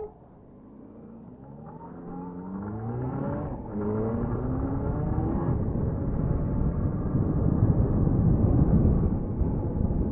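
Motorcycle engine pulling away and accelerating, its pitch rising, dropping at an upshift about three and a half seconds in and rising again before a second shift. After that a steady rush of wind and road noise grows with speed and covers the engine.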